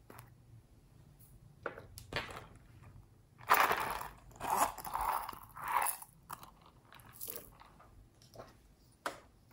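Close-up handling noises of small plastic and silicone toys. There are a few light clicks, then a run of loud, crunchy rustling bursts from about three to six seconds in, and a sharp click near the end.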